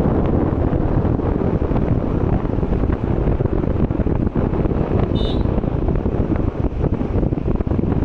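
Steady wind buffeting the microphone of a moving rider, a loud low rushing rumble mixed with road and engine noise. A short faint high tone sounds about five seconds in.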